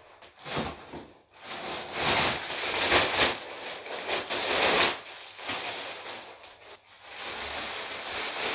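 Thin plastic bag rustling and crinkling as it is handled, in uneven stretches: a short rustle, a long loud spell of crinkling, a pause, and more rustling near the end.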